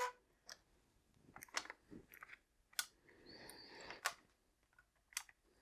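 Faint, scattered clicks, about six spread through the stretch, with a soft rustle a little past the middle.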